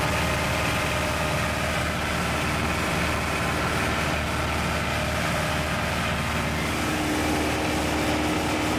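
Engine and propeller of a 1946 Piper J-3 Cub running steadily in level flight, heard from inside the cabin along with the rush of air.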